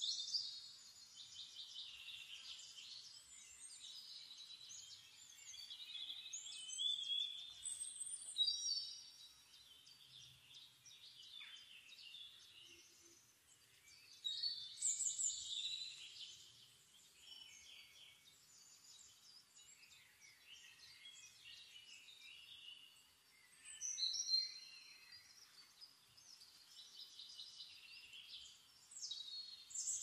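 Songbirds singing: high chirps and rapid trills in repeated phrases, with a louder burst of song every several seconds over a faint outdoor background.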